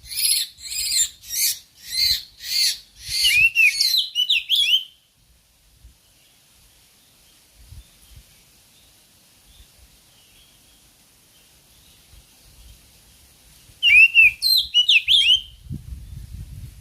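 Oriental magpie-robin calling: a run of harsh, rasping notes about three a second, then a few quick whistled slurs. After a long quiet stretch, another short burst of whistled notes comes about fourteen seconds in. A low rumble starts near the end.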